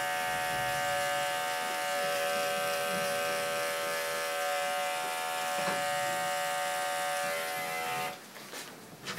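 Electric dog grooming clipper running with a steady hum as it trims a Scottish terrier's coat, switching off about 8 seconds in. A few light knocks follow.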